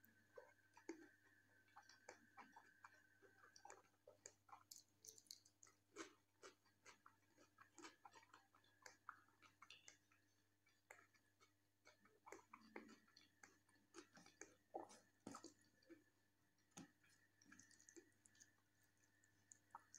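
Faint close-miked chewing of rice and jackfruit curry eaten by hand: a stream of soft, wet mouth clicks and smacks, several a second. A faint steady high whine and low hum sit underneath.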